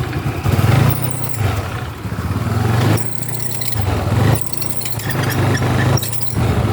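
Yamaha Mio MXi 125 scooter's single-cylinder engine running, its pitch and loudness rising and falling, with short high squeaks every second or so: the dragging, squeaking noise the owner is out to fix.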